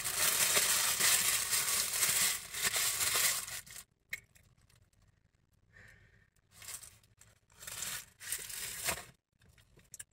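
Paper fast-food sandwich wrapper being handled and crumpled in the hand, loud crinkling for the first three and a half seconds, then two shorter bursts of crinkling about two-thirds of the way through.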